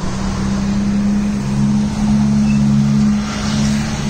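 A steady low engine hum, held at an even pitch throughout.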